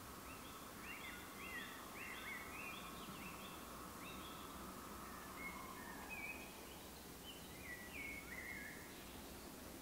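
Songbirds singing in repeated short phrases over a faint, steady high hum from a Class 73 electro-diesel approaching in the distance; the hum drops away about six seconds in.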